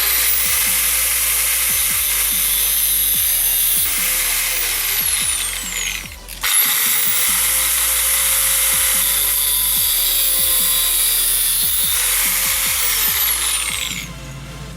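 Handheld electric power tool working metal, run twice. Each time it spins up quickly, runs steadily with a high whine, then winds down in pitch when released. The second run starts about six and a half seconds in.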